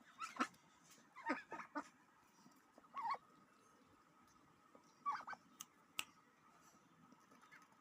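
Pet duck making soft, short calls in little clusters of two or three, four times over, with a single sharp click near the end.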